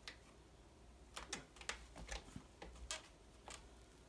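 A cat scuffling on a cat tree while it chases its tail, its claws scratching and catching on the sisal-rope post and fabric platform. It makes a faint, irregular run of about eight short scratchy clicks, starting about a second in and stopping near the end.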